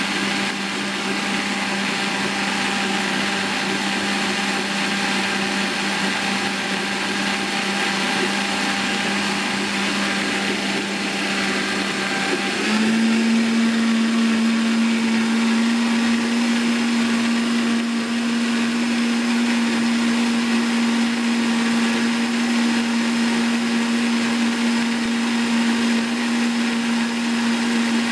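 High-powered countertop blender running steadily, blending a strawberry, banana and milk smoothie in its jar. About halfway through, its motor hum steps up slightly in pitch and gets a little louder, then holds steady.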